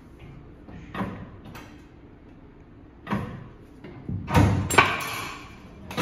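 Old foot-operated sheet metal shear cutting a strip off a sheet-metal blank. There are light knocks about one and three seconds in, then a loud clanking slam with two sharp hits a little after four seconds as the treadle is pressed and the blade comes down through the metal.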